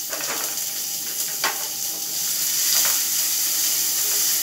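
Chopped onions sizzling in hot oil in a frying pan, added to a tempering of mustard seeds, chana dal, urad dal and ginger. The steady hiss is broken by three light clicks about a second and a half apart.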